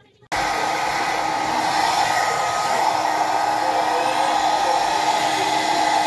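Handheld hair dryer blowing steadily, a loud even rush of air with a faint motor whine. It starts suddenly just after the beginning.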